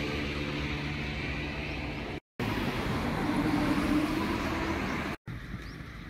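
Road traffic noise with a steady low engine hum, cut off briefly twice where separate short recordings join.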